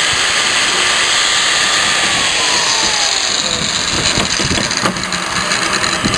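A power tool's motor running loud and steady, its whine dropping in pitch a couple of seconds in as it is loaded, with irregular knocks near the end.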